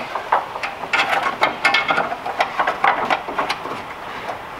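Plastic and wiring being worked by hand: an LED headlight bulb and its wiring harness pushed and fed back into a car's headlight housing, making irregular clicks, small rattles and rubbing.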